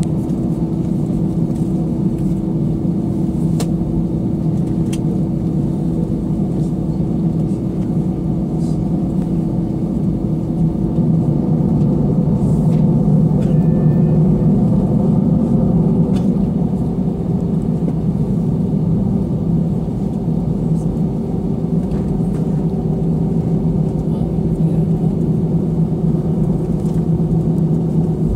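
Airbus A320 cabin during taxi: a steady engine rumble with a low hum, swelling slightly about halfway through.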